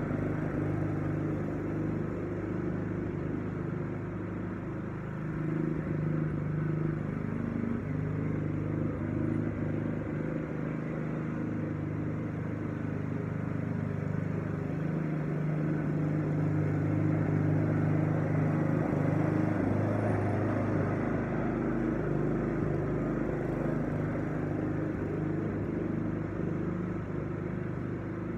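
Walk-behind lawn mower engine running steadily as the mower is pushed across the grass, growing a little louder and fainter as it moves nearer and farther.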